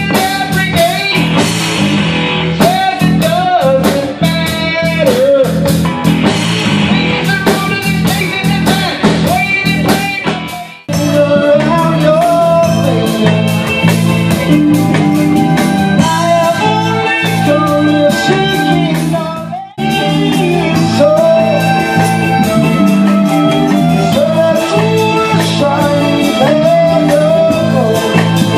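Live blues-rock band playing: electric bass, electric guitar and drum kit, with a lead voice singing over them. The music cuts out briefly twice, about 11 and 20 seconds in, where separate clips are joined.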